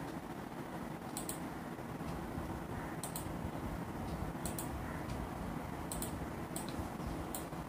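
Light, sharp clicks, mostly in quick pairs, about every second and a half, over a low steady room hum.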